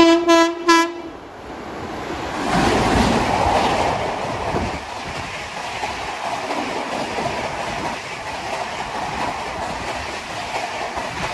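WAP-7 electric locomotive sounding short horn blasts, then rushing past at about 129 km/h, followed by the steady rushing and clatter of the Jan Shatabdi Express coaches running through.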